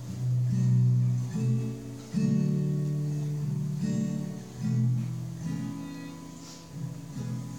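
Acoustic guitar strumming slow held chords, changing chord about every second.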